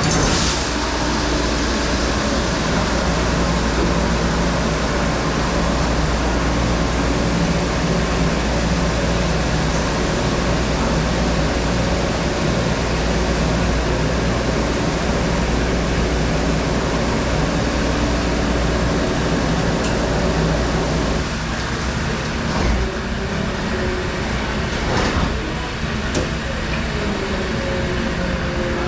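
Steady machine noise: a strong low hum under an even hiss, with a few knocks in the last several seconds.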